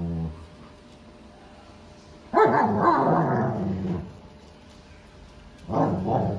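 German shepherds wrestling in play, growling: a growl trailing off at the start, a louder, longer growling snarl about two and a half seconds in, and another growl starting near the end.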